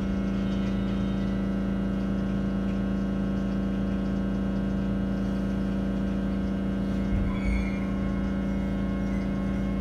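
JR West 221 series electric train giving off a steady, unchanging low hum with many overtones, the noise suspected of being abnormal. A brief low bump comes about seven seconds in.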